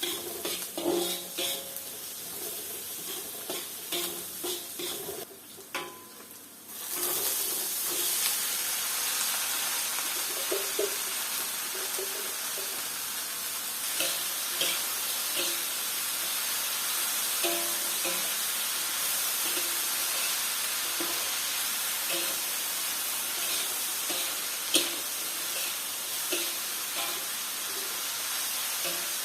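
Food frying in hot oil in a pan. A loud steady sizzle starts suddenly about seven seconds in, with occasional clicks of a utensil stirring against the pan.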